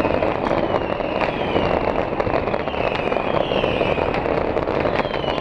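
Fireworks going off in a dense barrage: a steady rush of crackling with many sharp bangs and pops. A high falling whistle repeats throughout, about every half to three-quarters of a second.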